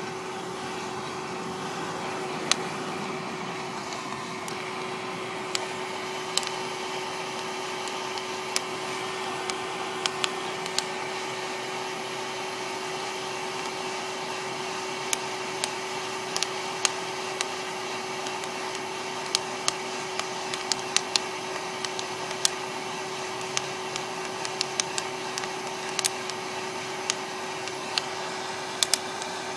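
West Bend Poppery hot-air popper's fan blowing with a steady hum, while the coffee beans roasting in it crack with sharp separate pops, a few at first and more often from about halfway on: the beans are entering first crack.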